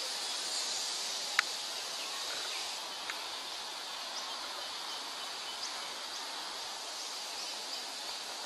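Outdoor natural ambience: a steady high hiss like an insect drone, with a few short bird chirps or clicks scattered through it, the sharpest about one and a half seconds in.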